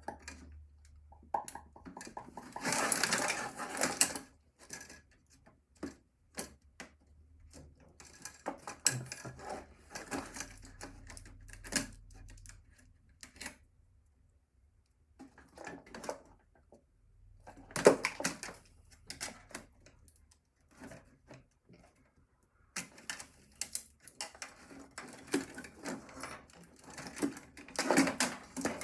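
Irregular clicks, taps and clattering of small plastic and metal parts being handled as a laptop is taken apart by hand. There is a busy stretch of clatter a few seconds in, a single sharp click about halfway through, and more rapid handling near the end.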